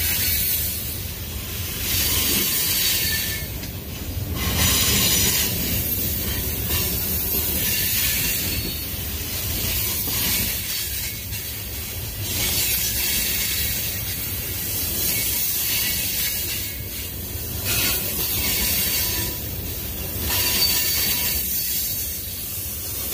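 Covered hoppers and tank cars of a Union Pacific manifest freight train rolling past at close range: a steady rumble and rattle of steel wheels on rail that swells every couple of seconds as each car's wheel sets go by.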